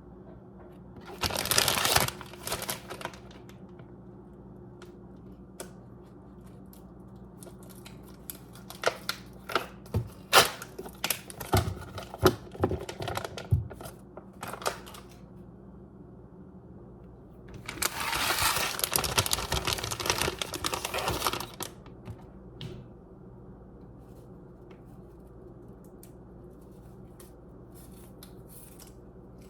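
Handling noises: a short rustle, then a run of sharp clicks and knocks, then a longer rustling hiss lasting about four seconds.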